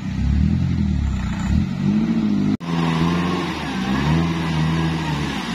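Modified Daihatsu Taruna 4x4 engines revving up and down under load while crawling through mud, the pitch rising and falling repeatedly. A little over two and a half seconds in, the sound cuts off sharply for an instant and picks up again as a second off-roader revs in deep muddy water.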